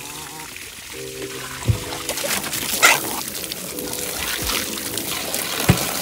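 Water from a garden hose splashing into a pan of water, the splashing growing louder about two seconds in, over background music with held chords.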